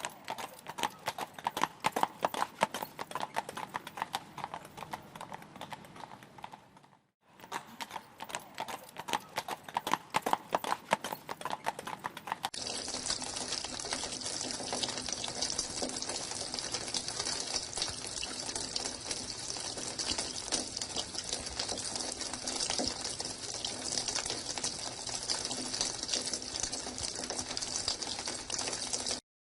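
Horse hooves clip-clopping in a quick, dense run of hoof strikes, with a short break about seven seconds in. About twelve seconds in, this gives way to a steady outdoor hiss, strongest in the high range.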